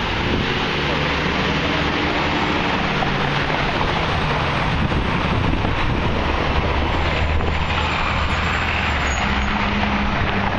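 Steady road traffic on a busy city street, with the low hum of vehicle engines running.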